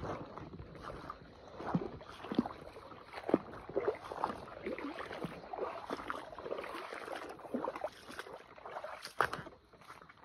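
Irregular splashing, sloshing and rustling of feet moving through shallow water and wet grass, with short clicks throughout. A faint high chirp repeats about once a second.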